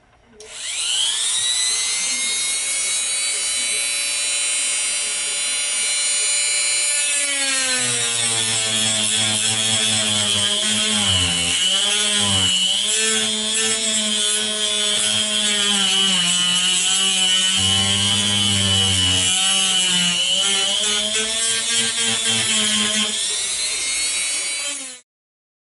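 Handheld rotary tool spinning up to a steady high whine, then grinding into a white plastic tube cover to route out the manometer port. Its pitch wavers as the bit bites. It runs free again briefly and cuts off near the end.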